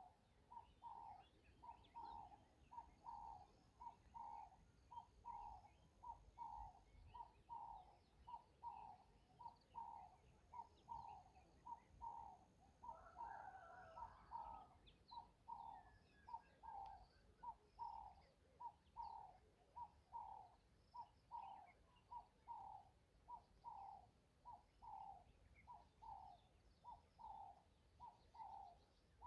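A bird calling faintly, repeating one short note over and over, about three every two seconds, with a louder, longer call about halfway through.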